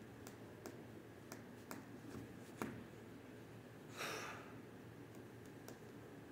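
Quiet indoor room tone with a faint steady hum, scattered faint clicks, a sharper click about two and a half seconds in, and a short hiss about four seconds in.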